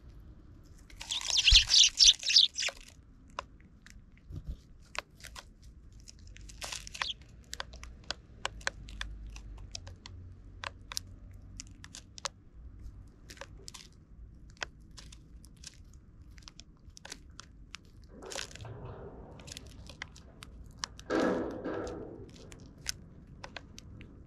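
Eurasian tree sparrows pecking and cracking birdseed in plastic feeder trays close to the microphone: a steady scatter of sharp little clicks and crunches. A loud rustling flurry comes about a second in, and two softer ones come in the last third.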